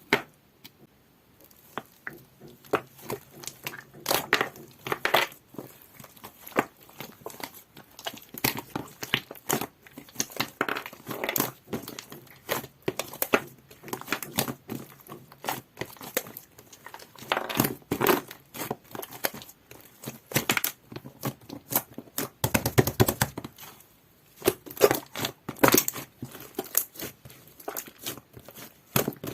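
Hands squishing and stretching clear, jelly-textured slime: a dense, irregular run of wet crackles, clicks and pops. A brief dull rumble about three-quarters of the way through.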